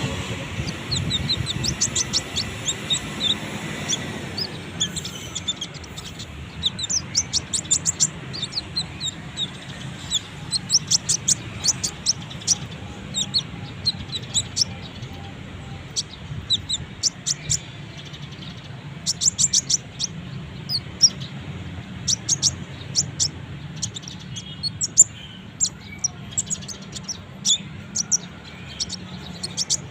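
Kolibri ninja sunbird calling: many short, high, thin chirps in quick clusters, over a faint steady low hum.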